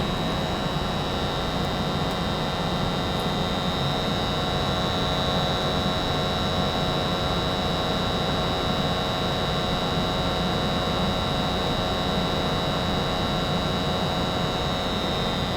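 American Standard 90% gas furnace running in steady operation, its motors giving an even hum. A steady high-pitched whine sits over the hum and stops near the end.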